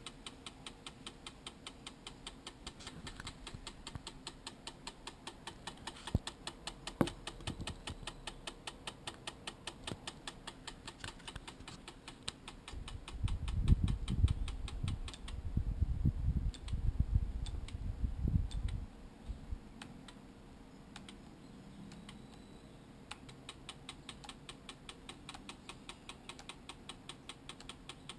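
Sigma 10-20mm lens on a Canon camera clicking steadily, about four clicks a second: an unwanted fault noise from the lens. A louder low rumble comes through from about 13 to 19 seconds in, while the clicks fade.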